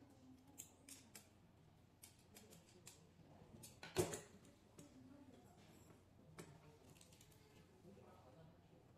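Small metallic clicks and taps of hand assembly on a shaded-pole motor: a screwdriver working a screw into the metal end plate, and parts handled. About four seconds in comes one sharp knock, the loudest sound, as the end plate and screwdriver are set down on the wooden table.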